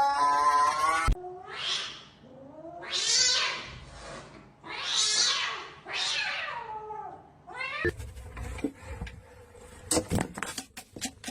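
Cat vocalizing: a held meow cut off about a second in, then four or five drawn-out, breathy cries about a second each. From about eight seconds in come scattered sharp clicks and knocks.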